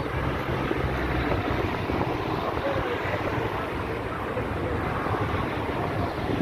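Wind buffeting the microphone in a steady low rumble, over the even wash of rough sea surf.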